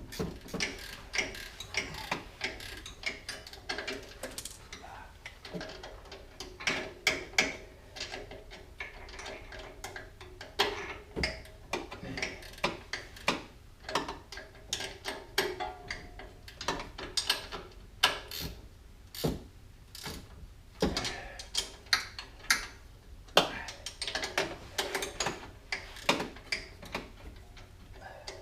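Hand ratchet wrench clicking in short runs of strokes as suspension nuts are run down and tightened, with scattered metallic clinks and knocks of tools and parts.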